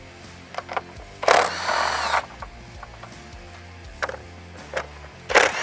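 Cordless drill spinning a 10 mm socket to back out the nuts holding the grille assembly, in two short runs of about a second each with a whine that rises and falls, the second near the end, and a few light clicks between them.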